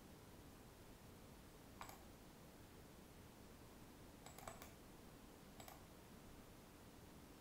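Faint clicks of a computer mouse or keys over low room hiss: one click about two seconds in, a quick pair at about four and a half seconds, and another near six seconds.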